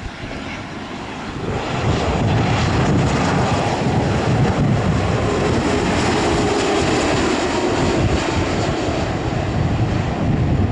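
A Boeing 787 Dreamliner's GEnx turbofans running at low approach power as the airliner flies past on final approach with its gear down. The jet roar swells about one and a half seconds in and stays loud, with a whine that falls in pitch in the second half as the aircraft passes.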